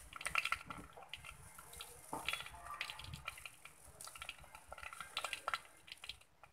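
Oil frying faintly in an earthen clay pot with dals and mustard seeds in it: a light sizzle with many scattered small crackles and pops. It cuts off near the end.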